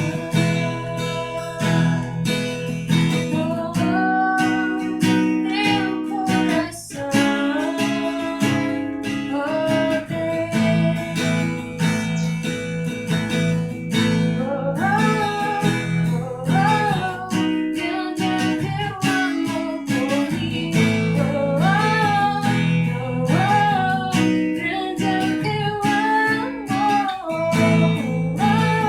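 A woman singing a worship song in Portuguese over strummed acoustic guitar.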